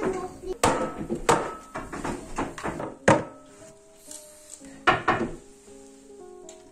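Background music of steady sustained tones, with several clattering knocks from a metal baking tray and silicone spatula: the spatula scraping batter across the tray, then the tray being handled. The sharpest knock comes about three seconds in, and two more follow close together around five seconds in.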